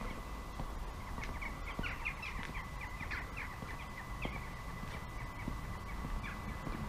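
Small birds chirping: many short, quick, falling notes scattered throughout, over a steady low rumble.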